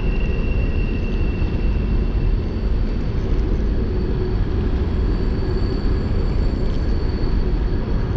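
Steady rushing of a high, fast-flowing creek, a constant noise heaviest in the low rumble.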